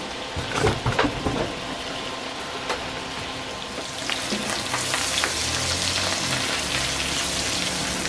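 Canned button mushrooms sizzling in melted butter in a glass frying pan. Sharp knocks sound between about half a second and a second and a half in, and a spatula stirs them through the sizzle, which grows louder about four seconds in.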